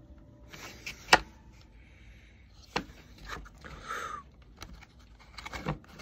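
Plastic clicks and knocks of a counterfeit Wago-style lever connector being forced into an orange plastic junction box it is too big for. There are two sharp clicks, about a second in and near the middle, between fainter scraping and handling.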